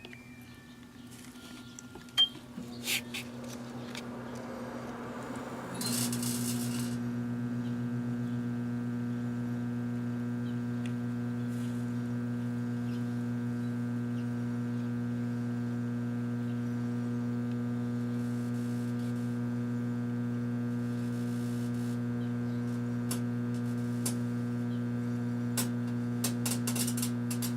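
A few clicks and clinks of the glass bulb and the oven door being closed, then about six seconds in a microwave oven starts and runs with a loud, steady electrical hum. A few sharp ticks come near the end.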